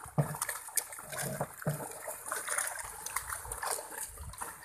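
Fish trapped in a net at the pond's edge thrashing in shallow water, with irregular splashes and slaps as they struggle to escape.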